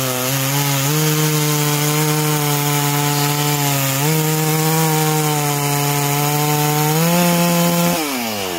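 Stihl MS660 two-stroke chainsaw with a modified cannon muffler cutting through a log at full throttle, its pitch sagging slightly under load as the chain bites. Near the end the throttle is released and the revs fall away.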